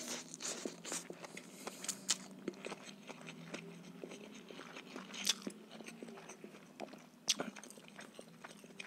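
Close-up chewing of rice noodles and marinated mussels: soft wet mouth clicks and smacks, with a few sharper clicks about two, five and seven seconds in.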